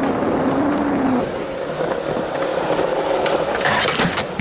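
Skateboard wheels rolling on smooth concrete, a steady rolling noise, with a few sharp clacks of the board about three and a half seconds in.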